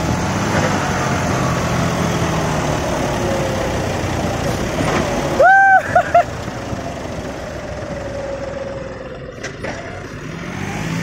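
Tractor diesel engines labouring under heavy load in a tug-of-war, the engine note sagging slowly as they lug. About halfway through, a loud high tone sounds once long and then twice briefly.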